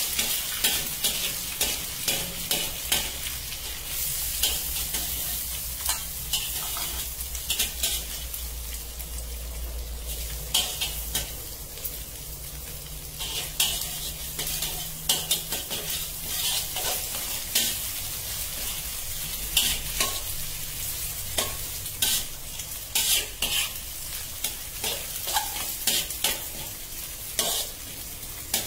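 Scrambled eggs frying in a metal wok with a steady sizzle, while a spatula repeatedly scrapes and knocks against the pan as they are stirred.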